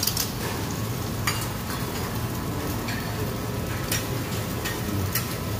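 Egg and food sizzling on a hot steel flat-top griddle, with several sharp clinks of a metal spatula and bowl against the plate.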